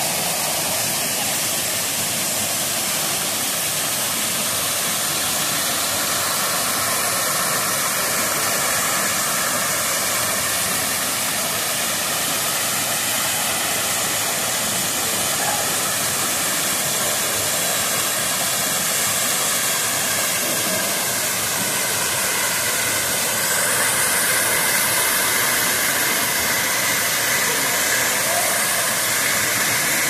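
Waterfall in full flow: a steady, loud rush of falling water that grows slightly louder about two-thirds of the way through.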